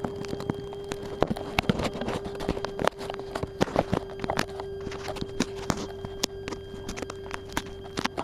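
Fingers handling a small camera right at its microphone: irregular clicks, knocks and rubbing, over a steady hum.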